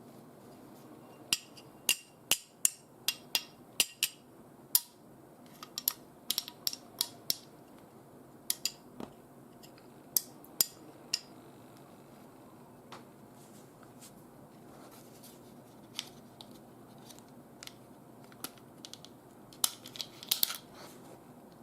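Umarex Glock 17 Gen 5 9 mm P.A.K. blank pistol being handled: irregular sharp clicks and snaps of its slide, trigger and plastic-and-metal magazine, coming in clusters through the first half and again near the end.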